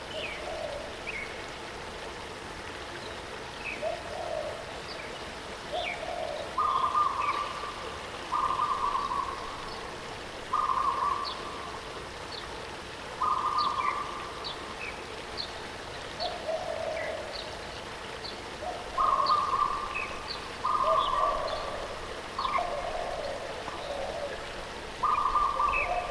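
Birds calling over the steady rush of a waterfall: a repeated call about a second long, sounding at two pitches, one higher and one lower, with quick high chirps scattered between.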